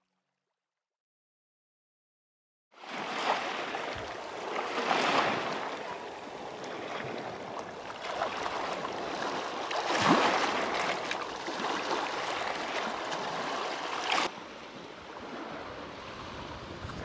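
Silence for nearly three seconds, then small sea waves washing over a pebble and rock shore, swelling and falling back every few seconds. The level drops a little after a surge near the end.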